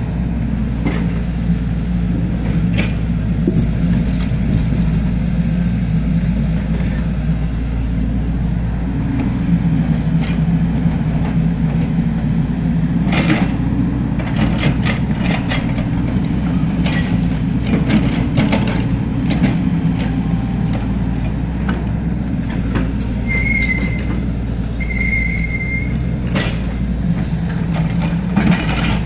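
Excavator's diesel engine running steadily while it digs, with scattered metallic clanks from the working gear. Near the end come two short high-pitched squeals, the second a little longer.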